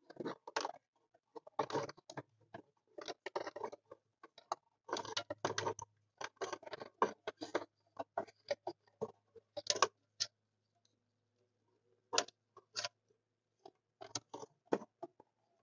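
Hands working wiring behind a car dashboard: plastic radio wiring connectors and harnesses being pushed and seated, with irregular clicks and rustling of wires and dash plastic. A pause of about two seconds comes about two-thirds in, followed by a few sharper clicks.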